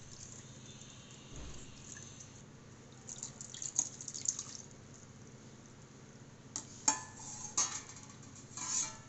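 Soaked tamarind water being squished by hand in a steel pot, then poured through a steel mesh strainer, splashing and dripping into a plastic bowl. A few sharp clinks of the steel pot and strainer come in the second half.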